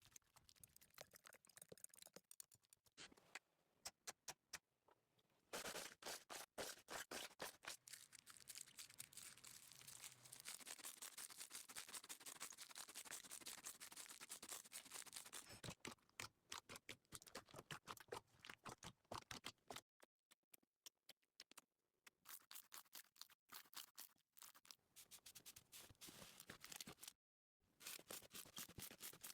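Slime being handled: faint, dense crackling clicks and sticky pops in irregular runs, broken by a few short pauses.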